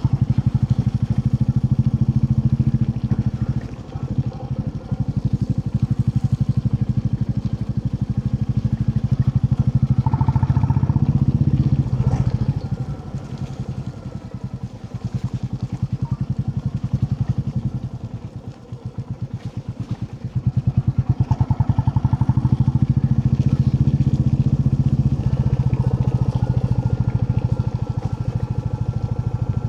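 Royal Enfield Classic 350's single-cylinder engine running under way, its rapid exhaust beat steady for most of the time. The engine eases off about twelve seconds in, drops lowest a little before twenty seconds, then picks up again.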